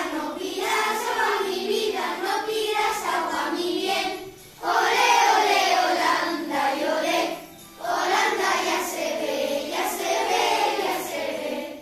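A class of children singing a Christmas song together in unison, in phrases with two short breaks between them.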